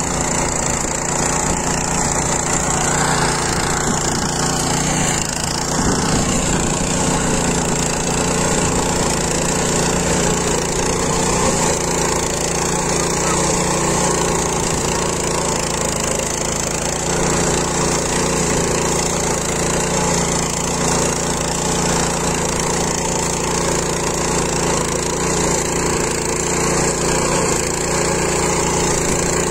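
Walk-behind power weeder's small engine running steadily as its rotary tines churn the soil between crop rows.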